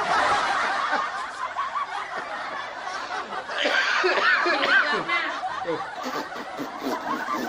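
Several people laughing, their voices overlapping, swelling louder a few seconds in.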